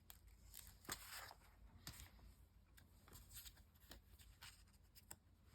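Faint paper handling: a brief rustle of magazine paper about a second in and a scattering of soft taps and small clicks as a cutout is positioned and glued down with a glue stick.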